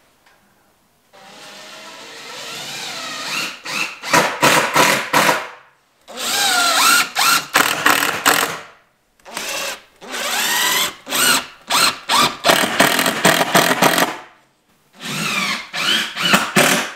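Cordless drill running into the pine wall boards in five bursts, with short gaps between them. Within each burst the motor's pitch rises and falls with the trigger, and several bursts end in a few quick stop-start pulses.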